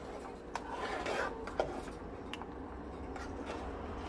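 A spoon stirring thick soup in a large metal pot, scraping through the soup and knocking against the pot a few times in the first half.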